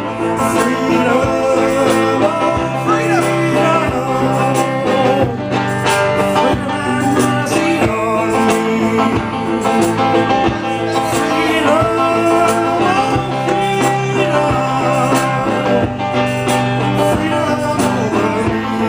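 Live song from a singer-guitarist: singing over guitar, with a steady beat.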